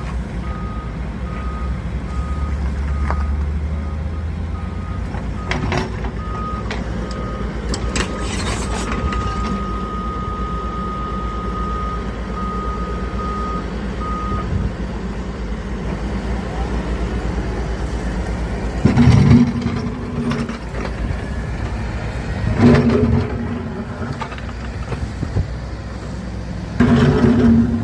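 Develon DX65W-7 wheeled excavator running, its diesel engine humming steadily while a warning beeper sounds in repeated beeps that merge into one long continuous tone and stop about halfway through. Three short, louder bursts of machine noise come in the second half.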